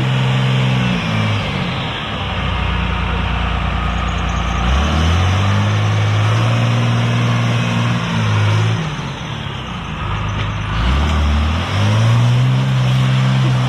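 Pickup truck engine working off-road, its revs rising and falling repeatedly: the pitch drops about a second in, climbs again a few seconds later, falls once more and picks back up near the end.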